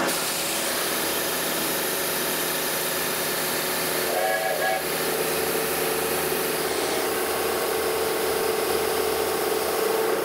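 Milling machine running, its rotating cutter cutting a step into a metal block, under a steady hiss of air from the mist-coolant nozzle aimed at the cut.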